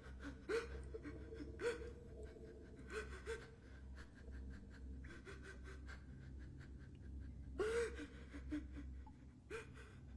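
A man gasping and whimpering in short, uneven breaths, about half a dozen times, the loudest near the end, over a faint low hum.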